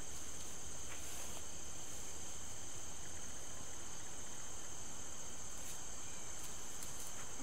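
Steady high chorus of crickets trilling, with a few faint clicks.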